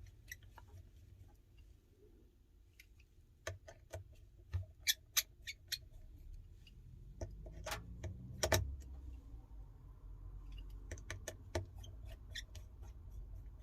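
Irregular sharp clicks and ticks of small metal tools, tweezers and screwdriver, on the iPhone 12's internal parts and screws, with clusters a few seconds in, around the middle and later on.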